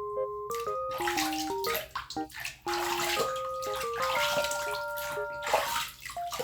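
Water running and splashing in surges as a puppy is washed in a bath, with light background music of simple stepping notes over it.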